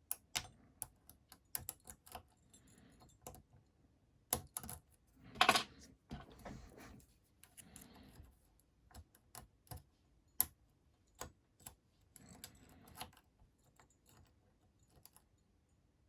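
Small irregular clicks and taps of a lock pick and tension wrench working the pins inside a Master Lock 410 padlock, with a louder click about five and a half seconds in.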